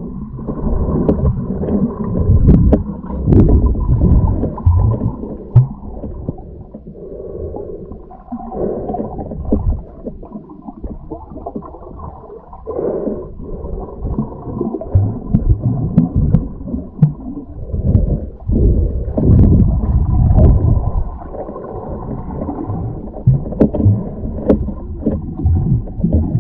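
Muffled underwater rumbling and gurgling of water moving around a waterproof camera housing as a diver swims along the bottom, rising and falling in surges, with scattered small clicks and knocks.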